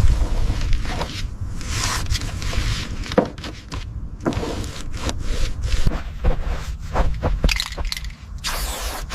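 Scraping and knocking of hand work, with many irregular clicks and short rasping bursts over a steady low rumble.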